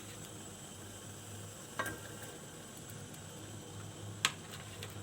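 Water boiling in a pan on a gas stove, a faint steady bubbling hiss, with two short clicks, about two seconds in and again near the end.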